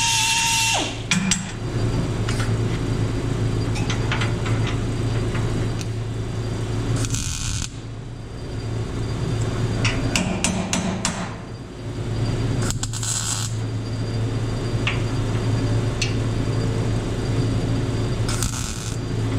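A hand-held angle grinder running down about a second in, then clinks and knocks of steel tubing being fitted into a car body's floor frame over a steady low hum, with three short crackling bursts of MIG tack welds.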